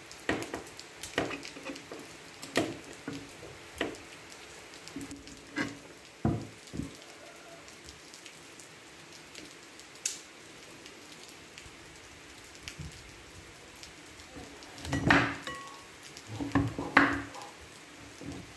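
Kitchen knife cutting and peeling the rind off raw pumpkin wedges on a wooden chopping board: short scraping cuts spread over the first seven seconds and a louder cluster of knife strokes on the board near the end, over a steady hiss of rain.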